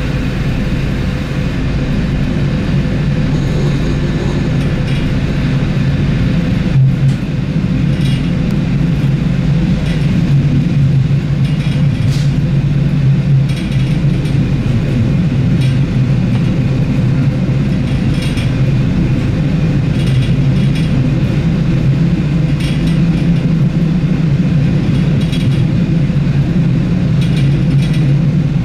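Diesel engine of an ALn 668 railcar running steadily under way, heard from inside the passenger cabin, with the rumble of the wheels on the rails and scattered clicks and clatter from the track.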